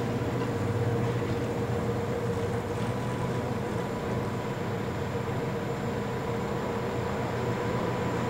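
Steady rumbling background noise with a constant hum, unchanging throughout.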